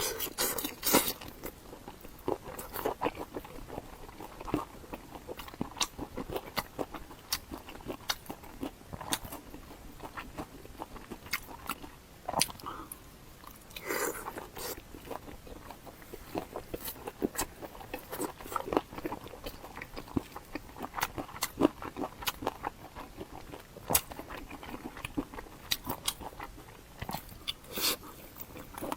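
Close-miked eating: irregular crunching bites and chewing of crisp food, with wet mouth sounds between the crunches.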